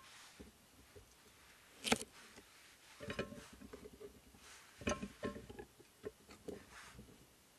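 Scattered sharp clicks and knocks of small objects being handled: one sharp snap about two seconds in, then clusters of knocks around three and five seconds, a few with a short ringing tone.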